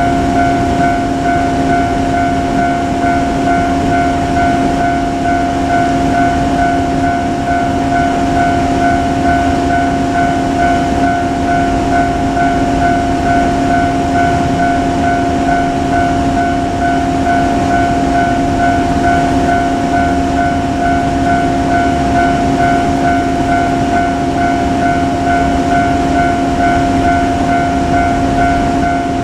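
Railway level-crossing warning bell ringing in a steady repeating beat, over the continuous rumble of a container freight train rolling through the crossing.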